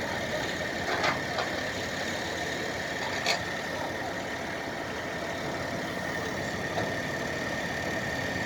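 An engine idling steadily, with a steady high whine over it. Two short sharp knocks come about a second in and about three seconds in.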